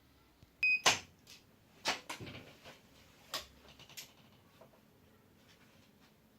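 A short high squeak, then a series of sharp clicks and knocks as small unboxed accessories and their packaging are handled, strongest in the first two seconds and thinning out after about four seconds.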